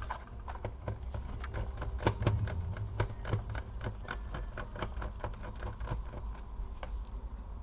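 Light, irregular clicks and taps of a small hand screwdriver and metal screws as screws are worked out of a laptop's display hinges, several clicks a second.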